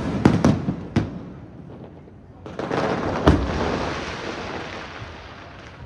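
Aerial fireworks shells bursting: several sharp bangs in the first second, then about halfway through a long dense wash of noise with one more sharp bang in it, fading away.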